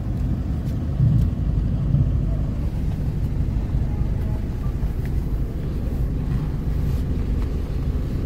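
Steady low rumble of a car's engine and running gear, heard from inside the cabin, with a few faint clicks.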